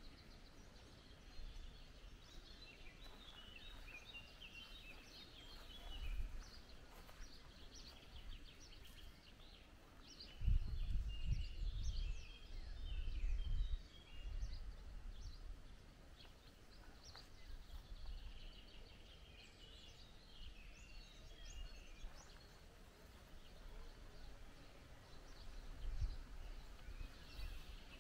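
Small birds chirping and singing, many short calls through the whole stretch, over a faint outdoor background. Low rumbling comes and goes, loudest from about ten to fourteen seconds in.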